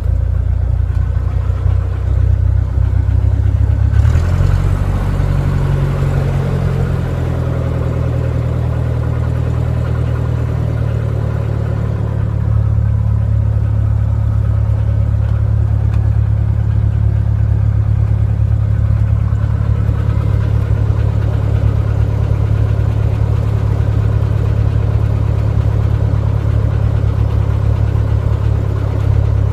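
Light aircraft's piston engine and propeller, heard from inside the cockpit, running as a steady low drone while the plane is on the ground after landing. About four seconds in, the engine pitch drops over a couple of seconds. About twelve seconds in, the drone grows a little louder and then holds steady.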